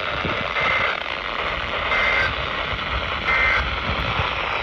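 Emergency Alert System end-of-message signal: three short bursts of SAME digital data tones, about 1.3 s apart, received over a weather radio. Steady radio static hiss runs under them, a sign of weak long-distance reception.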